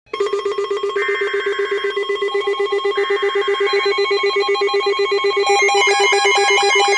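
Emergency alert tones: a loud, fast-pulsing electronic alarm trill, with two short bursts of screeching digital header data about one and three seconds in. More high stepping tones join the alarm about five and a half seconds in.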